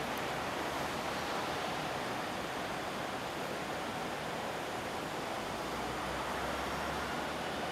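Steady city street noise of traffic at night on a tram route, with a low rumble coming in for a moment about five and a half seconds in.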